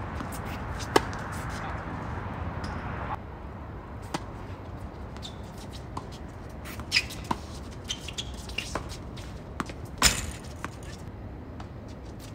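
Tennis ball being struck by rackets and bouncing on a hard court during a doubles rally: sharp, irregularly spaced pops, the loudest about a second in and again near ten seconds. A steady background hiss drops off about three seconds in.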